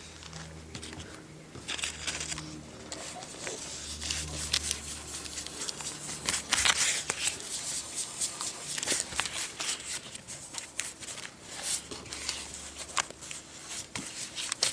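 Vinyl sticker and its backing paper being handled, rustling and crinkling, with scattered light clicks and scrapes. A faint low hum comes and goes underneath.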